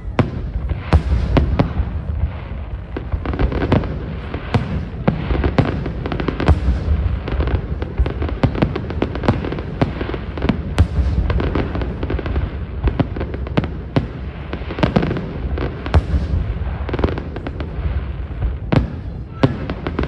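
Aerial fireworks bursting in quick succession: many sharp cracks and bangs, several a second at times, over a continuous low rumble of booms.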